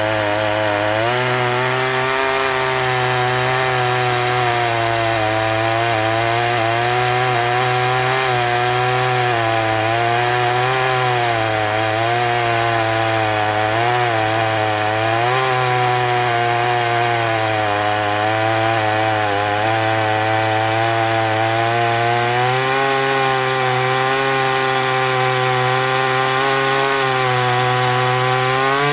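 Small Shindaiwa 360 two-stroke chainsaw cutting through hard ironbark under load. The engine labours at a steady, slightly wavering pitch, and right at the end the revs climb quickly as the chain comes free of the cut.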